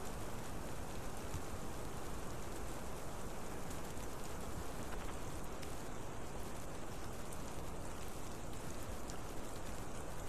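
Steady rain falling on the eagle nest and the camera, an even hiss scattered with small drip ticks.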